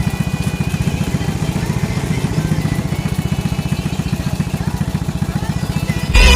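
Suzuki Shogun 110's single-cylinder four-stroke engine idling steadily through its exhaust, about ten even firing pulses a second. Loud music cuts in at the very end.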